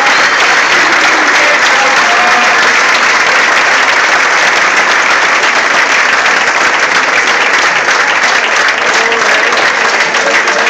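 Audience applauding: a steady, sustained round of clapping from a crowd.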